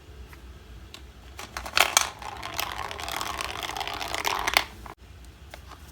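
Toy gumball machine being worked to dispense a plastic capsule: a few sharp plastic clicks, then about two and a half seconds of dense plastic rattling and clicking that cuts off suddenly, then a couple of faint clicks.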